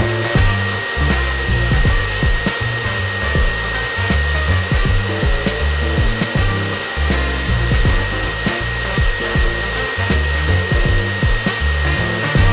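Dog grooming blower dryer blowing through its hose, a steady rush of air with a steady high whine, over background music with a steady beat.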